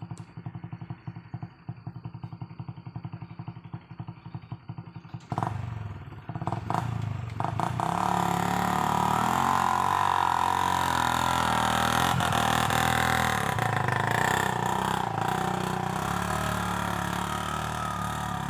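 Honda Revo 110cc single-cylinder four-stroke motorcycle engine in a homemade mini truck, ticking over in an even pulse. About five seconds in there are some clattering knocks and the engine revs up, then runs hard at high revs, its pitch wavering, as the truck is pushed up a slippery slope.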